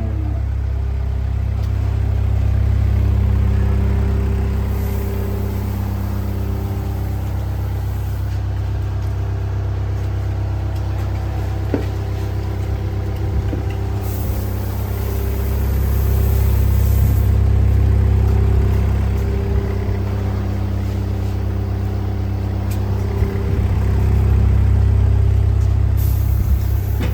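An engine running steadily with a low hum, swelling in level a few times.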